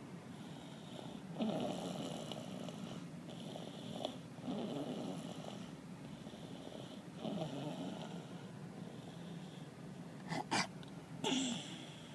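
Snoring: a slow, rasping breath about every three seconds, with two brief sharp snorting sounds near the end.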